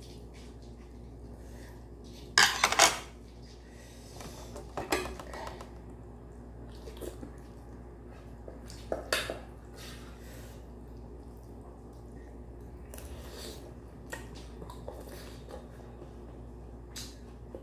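Metal spoon clinking against a stainless-steel pot and its lid while eating ramen: a few separate clinks and scrapes, the loudest a quick pair about two and a half seconds in.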